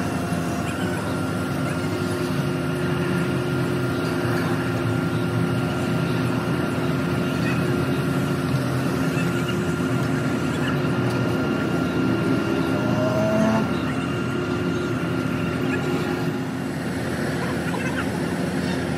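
An engine running steadily at a constant speed, with a short rising squeak about two-thirds of the way through.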